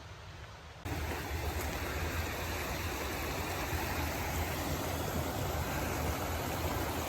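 Steady rushing of running water, cutting in abruptly about a second in and stopping dead at the end.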